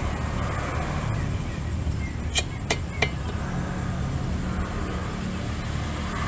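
Three sharp metal clinks in quick succession, a few tenths of a second apart, a little over two seconds in, from the cylinder head, its nuts and hand tools being handled while the head goes onto a two-stroke scooter engine. A steady low rumble runs beneath.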